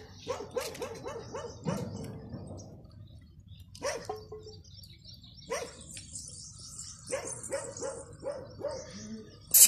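An animal giving runs of short, quick yelping calls, several a second, broken by short pauses.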